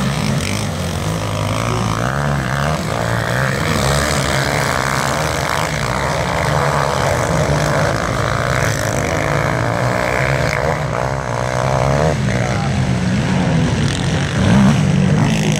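Engines of several racing quad bikes (ATVs) revving hard, their pitch rising and falling as the riders work the throttle.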